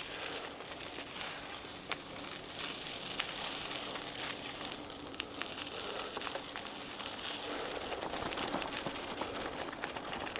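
Bicycle tyres rolling slowly through mud on a dirt trail: a steady crackling hiss with scattered clicks and ticks.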